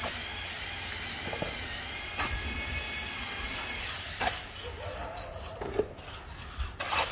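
A steel shovel scraping and scooping wet cement mortar on a concrete surface, in separate scrapes and knocks a second or two apart, the last near the end the loudest. A steady high-pitched whine and hiss runs in the background, fading about halfway through.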